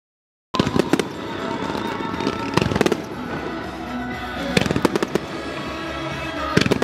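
Dead silence for about half a second, then the sound cuts in: aerial fireworks bursting in a rapid barrage of loud, sharp reports over music accompanying a music starmine display.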